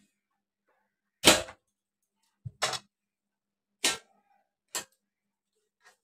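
Short, sharp knocks and rubs from a cloth being wiped and slapped along the blades of a ceiling fan, five or six of them about a second apart. The loudest comes about a second in.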